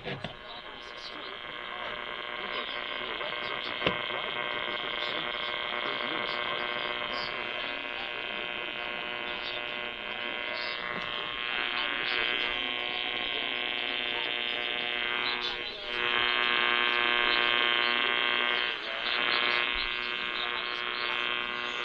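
Radio receiver audio of weak reception: a steady electrical buzz with many overtones over static hiss, with a click about 4 s in and the buzz growing louder about two-thirds of the way through.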